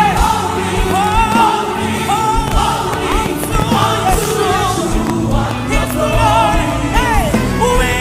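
Live gospel worship music: voices singing with vibrato and melismatic runs over a sustained band accompaniment.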